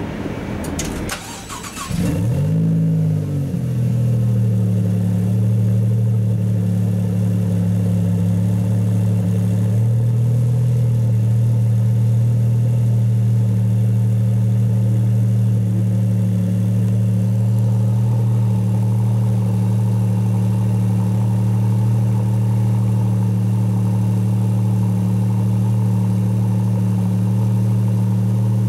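Maserati MC20's twin-turbo V6 cold-starting: it fires about two seconds in with a flare of revs that falls back, then settles into a steady idle.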